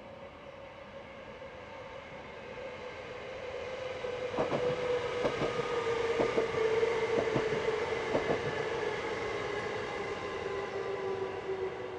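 NS Sprinter Lighttrain (SLT) electric multiple unit passing close by. A steady electric whine swells as it nears and sinks slightly in pitch as it goes past. About halfway through, its wheels click quickly over the rail joints.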